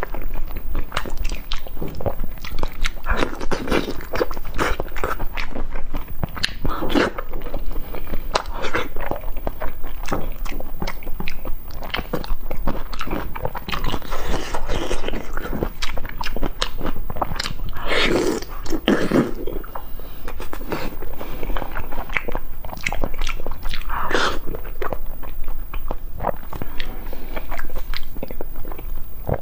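Close-miked wet chewing, biting and lip-smacking of sauce-covered braised beef tendon, with sticky, irregular mouth clicks throughout and a few louder wet mouth sounds about two-thirds of the way through.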